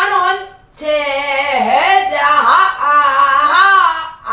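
A woman singing a Namdo folk song (Namdo minyo) solo in full voice, with long, wavering notes that bend up and down, and a short break for breath about half a second in.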